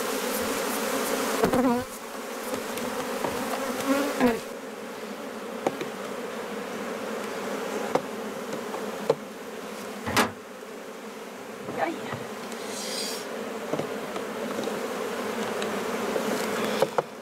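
Honey bees buzzing steadily around an open hive. Scattered sharp wooden clicks and knocks come from frames being pried loose and shifted with a hive tool, the loudest about ten seconds in.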